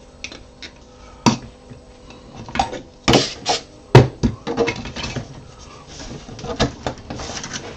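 Hard 3D-printed plastic parts and an aerosol can being handled and set down on a metal workbench: a series of clacks and knocks, the loudest about four seconds in, with short scuffing rustles between.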